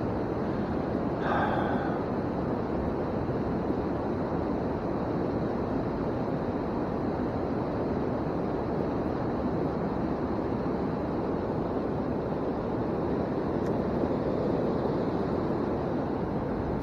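Steady rushing noise, with a brief higher-pitched sound about a second in.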